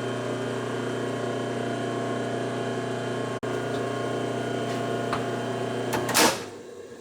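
Milling machine motor and spindle running at a steady pitch, then stopping abruptly about six seconds in with a short loud clunk.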